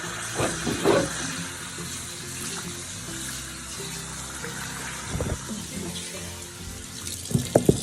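Tap water running steadily while a dog is bathed, under background music with held notes. A few short, louder sounds stand out about a second in and again near the end.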